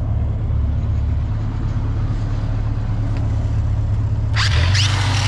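An engine runs steadily with a low drone; about four seconds in, an angle grinder with a buffing wheel starts up on the weld, loud and harsh with a high whine, and the engine note changes as it does.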